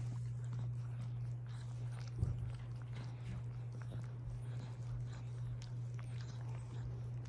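A Chihuahua nibbling and licking at another dog's head and ear, making small scattered mouth clicks over a steady low hum, with a brief thump about two seconds in.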